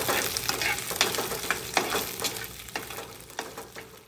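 Chopped green chillies, garlic and ginger frying in hot coconut oil, sizzling while a slotted metal spatula stirs them, clicking and scraping against the pot. The sizzle and stirring get gradually quieter toward the end.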